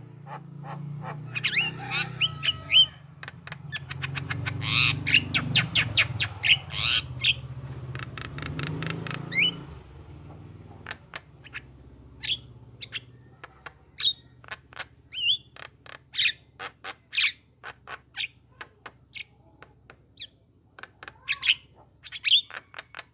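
Javan myna calls: rapid sharp clicks, short rising whistles and harsh chattering notes, dense and loud over a low hum for the first ten seconds or so, then sparser and quieter.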